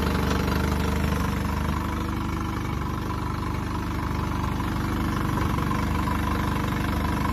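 A new 2021 Honda 15 hp four-stroke outboard idling steadily on its first run, cooled by hose water rather than sitting in the lake.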